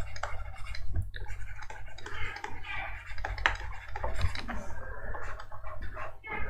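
Irregular light clicks and taps from handwriting on a computer whiteboard program with a pointing device, over a low steady hum.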